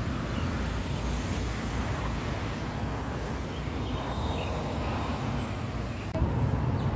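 Steady road traffic noise from passing cars, a continuous low rumble that gets louder about six seconds in.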